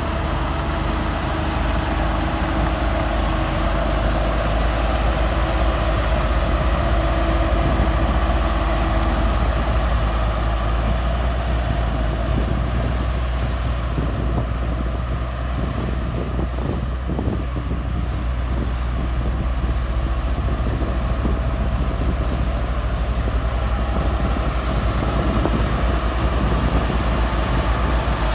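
Heavy earthmoving machine's diesel engine running steadily under load, deep and even throughout, with a level whine on top for the first ten seconds or so.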